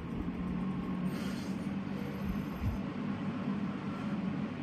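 Electric box fan running steadily: a constant motor hum under a wash of air noise.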